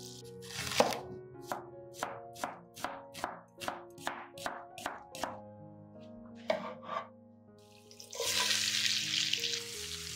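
Knife cutting an onion on a wooden cutting board: about a dozen even strokes, roughly two or three a second, then two more after a short pause. About eight seconds in, the sliced onion goes into a hot pan of butter and oil and starts sizzling.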